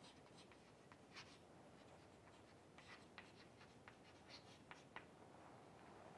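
Chalk writing on a chalkboard: faint, irregular taps and scratches of the chalk stick against the board.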